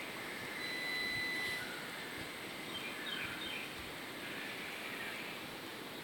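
Steady outdoor background noise with no single clear source. A thin, held whistle-like note lasts about a second, starting shortly in. A few faint chirps come around the middle.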